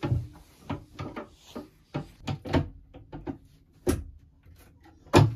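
Wooden shelf board being fitted onto the brackets of a slotted wall shelf rail: a string of short knocks and clacks, the loudest near the end.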